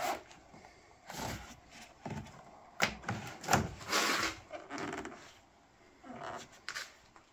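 Rubber seal and trim around a car's rear quarter window being pulled and worked by gloved hands: scattered rubbing, scraping and clicks, with a sharp click a little under three seconds in and a longer scrape around four seconds.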